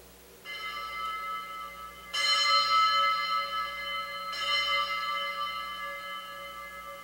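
Altar bells rung three times at the elevation of the consecrated host, the middle ring the loudest, each ringing on and fading slowly.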